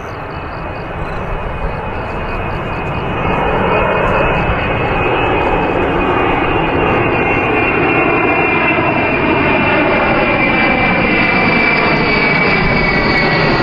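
Xian Y-20 four-engined transport jet flying low overhead: turbofan engine noise that swells about three seconds in and then holds, with a steady high whine over it and tones sliding slowly down in pitch as it passes.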